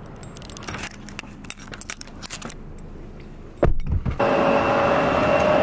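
Light clinking and rustling as someone climbs into a car's back seat, then a car door shutting with a heavy thump about three and a half seconds in. About four seconds in it cuts to the steady hum of air moving through a parked CRJ-900 airliner cabin, with two steady whining tones.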